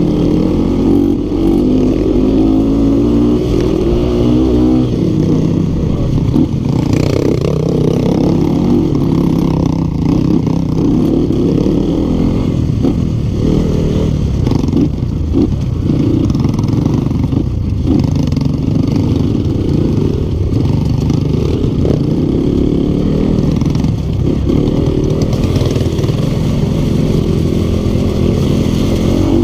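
Trail motorcycle's single-cylinder engine running and revving up and down under the rider's throttle, with knocks and rattles from the bike over rough ground. The engine is a BRT-built Yamaha Vixion engine that the owner says is leaking compression and pulls weakly.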